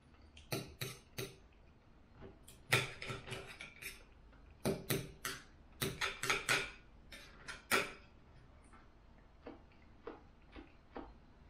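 Knife and fork clinking and scraping against a dinner plate while cutting food, in irregular clusters of sharp clicks, with softer clicks near the end.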